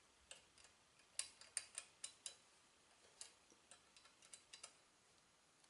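Faint, scattered light metal clicks, about ten in all, from a hex key working the set screws of a steel drive shaft collar, with near silence between.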